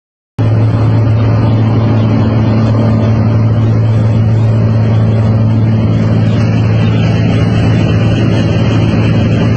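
Steady in-flight aircraft noise heard from inside the cockpit: a loud, even drone of engines and airflow with a strong low hum, starting about half a second in.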